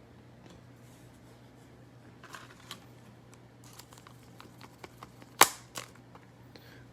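Trading cards being handled and flipped through by hand: soft rustles and light clicks, with one sharp snap about five and a half seconds in.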